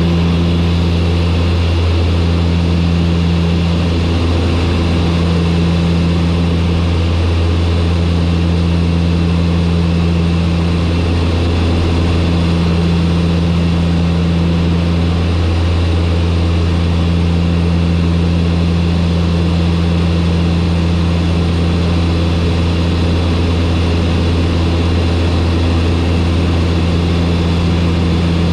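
Turboprop aircraft's engines and propellers running steadily on final approach, a loud, even drone with a slow pulsing in its lower hum every couple of seconds.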